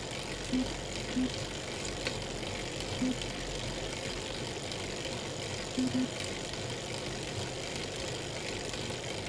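Elite Real Turbo Muin B+ bike trainer running under pedalling with a steady whir, broken by about five short, sharp cracks at uneven intervals, two of them close together about six seconds in. This is the cracking the owner gets from the trainer at any cadence once power goes over 200 watts.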